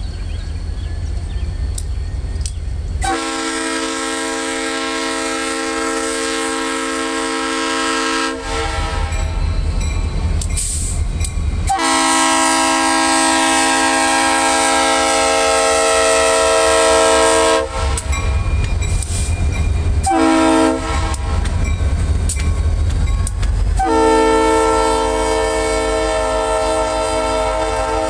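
An SD60M diesel locomotive's RS3L air horn sounds the grade-crossing pattern: two long blasts, a short one, then a final long blast, over the low rumble of the passing train. The horn is a steady multi-note chord.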